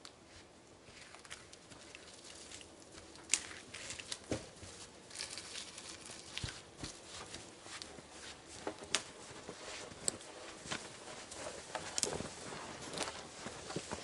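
Footsteps crunching through deep snow, growing louder as the walker comes closer, with scattered sharp snaps and crackles as he carries a dead pole through the brush.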